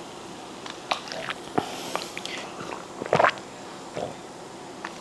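A person drinking from a glass, gulping and swallowing, picked up close by a clip-on microphone: scattered wet clicks and swallows, the loudest about three seconds in.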